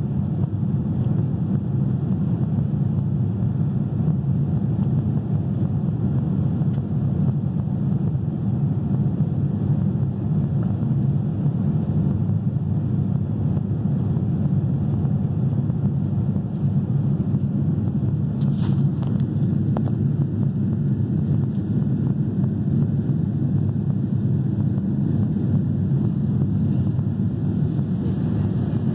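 Steady low rumble of a Boeing 787-9 climbing out after takeoff: engine and airflow noise heard from inside the passenger cabin. A faint click about two thirds of the way through.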